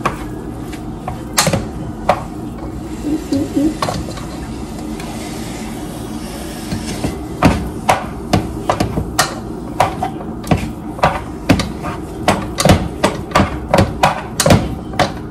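A cooking utensil knocking and scraping against a frying pan as food is stirred. The clacks are few at first, then come quickly, about two to three a second, from about seven seconds in, over a steady hum.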